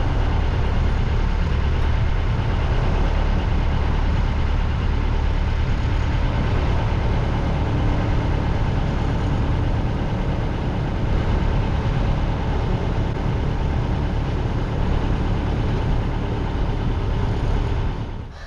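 Sailboat's inboard engine idling steadily while the boat creeps up to a mooring ball; the drone fades out just before the end.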